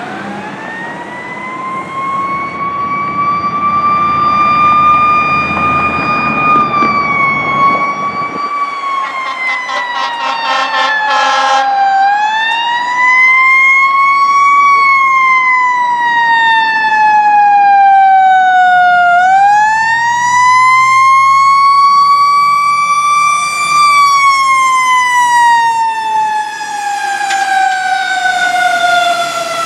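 Fire truck siren on a 2013 Pierce Velocity aerial ladder truck wailing as it approaches and passes, its pitch rising and falling in slow, long sweeps. A low rumble runs under it for the first eight seconds or so.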